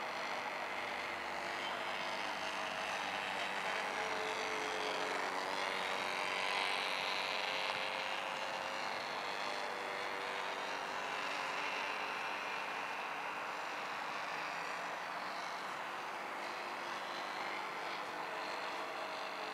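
Radio-controlled model airplane's motor droning steadily in flight overhead, swelling a little about six seconds in as the plane passes closest, then easing off.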